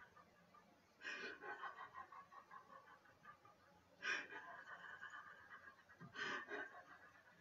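A woman laughing silently: three short, breathy gasps of air about a second, four seconds and six seconds in, without voice, faint overall. This is the silent laughter exercise of laughter yoga, the laugh held to breath alone.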